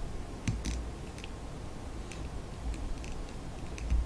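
Faint, scattered clicks and taps of small plastic figure parts being handled and fitted onto a round plastic base, with a soft bump near the end.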